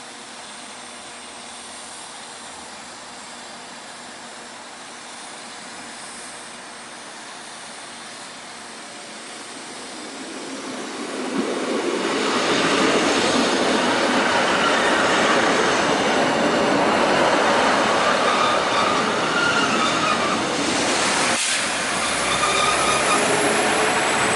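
A train approaching and running through, quiet at first and growing loud about halfway in, with high squealing from its wheels on the rails.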